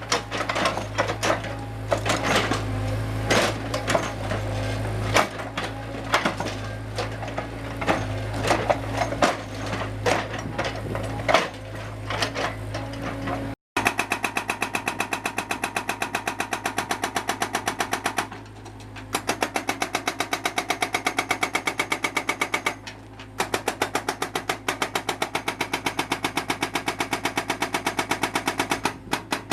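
Excavator breaking up a concrete wall. At first irregular knocks and cracks of concrete ring out over the steady hum of the engine. After an abrupt cut a rapid, even hammering follows, many blows a second, pausing briefly twice.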